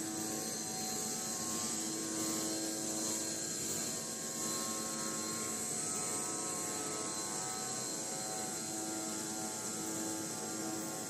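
High-speed CNC metal circular sawing machine running steadily: a constant machine hum with a strong high hiss over it.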